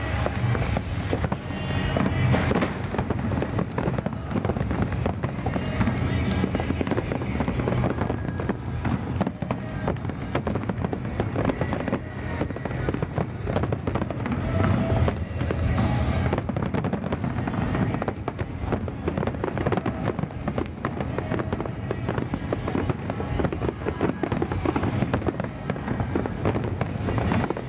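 Aerial fireworks shells bursting in a dense, continuous barrage of booms and crackles.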